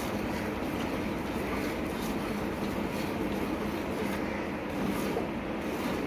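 Hand milking of a cow: streams of milk squirting into a steel pail of frothy milk, about two squirts a second, over a steady rushing background noise.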